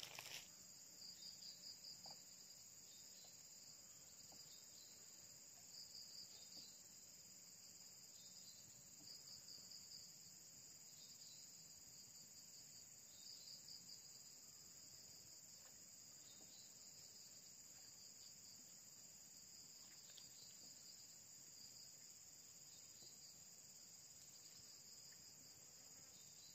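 Faint insect chorus: a steady high-pitched drone, with short pulsing trills that come and go every few seconds, mostly in the first half.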